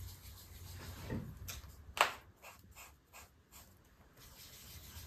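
Paintbrush working paint onto paper: a sharp tap about two seconds in, then a few brief soft dabs, over a faint low hum.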